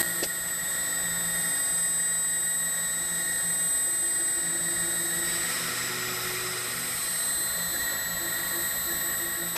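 CNC router traversing its spindle carriage across the table: the stepper motors hum in steady tones that shift pitch in steps as the moves change, over a steady high-pitched whine.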